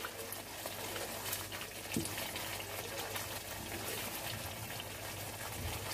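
Onion, yogurt and spice masala sizzling in oil in a wok as it is stirred with a wooden spatula, a steady faint crackle with a light knock about two seconds in. The masala is frying down to the point where the oil starts to separate.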